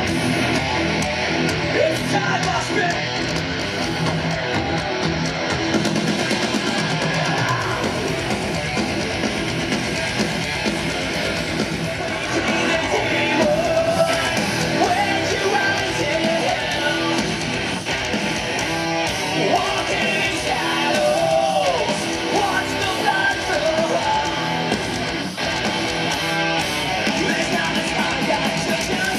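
Heavy rock band playing, with electric guitars and singing.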